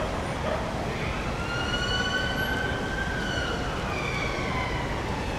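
Emergency vehicle siren in a slow wail, its pitch rising and falling, coming in about a second and a half in over steady traffic rumble.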